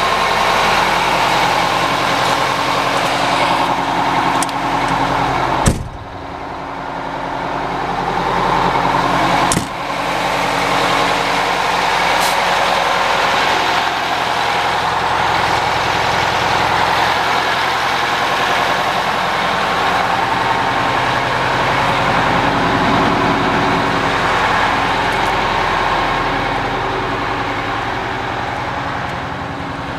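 Oshkosh M977 HEMTT's Detroit Diesel 8V92 two-stroke V8 diesel idling steadily. A sharp knock about six seconds in, after which the sound briefly dips, and another sharp click near ten seconds.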